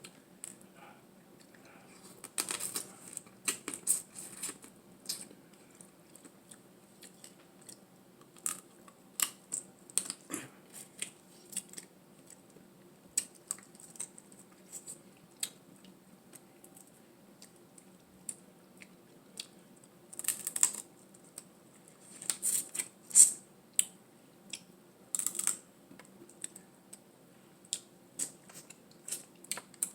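A person eating close to the microphone: irregular sharp clicks and cracks with chewing and mouth sounds, in clusters with short pauses between.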